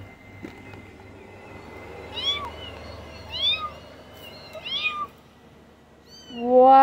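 Kittens mewing: three short, high-pitched mews, spaced a second or so apart. Near the end a louder, lower, drawn-out sound begins.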